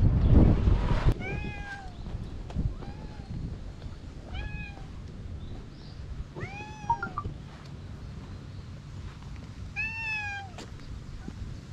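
A stray cat meowing repeatedly: about five short meows, each rising and then falling in pitch, spaced a second or two apart, the last about ten seconds in. A low rumble on the microphone in the first second is the loudest sound.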